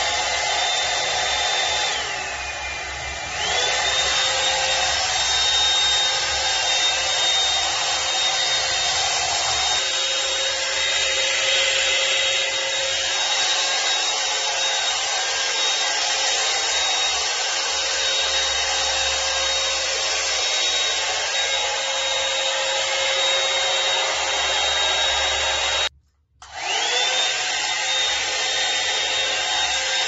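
A 1000W hot-air brush dryer blowing steadily, its small motor running with a high whine over the rush of air. Near the start the whine drops lower for about a second and a half, then climbs back. Near the end the sound cuts out for a moment and spins back up.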